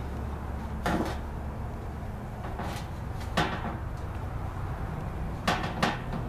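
Metal baking pans knocked and shifted as socks are laid into them: a few short clunks with a brief ring, one about a second in, another midway and two close together near the end, over a steady low hum.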